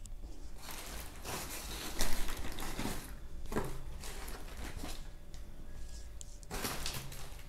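Rustling and crinkling as fur sandals and their plastic and cardboard packaging are handled, in three bouts, with a sharp knock about two seconds in.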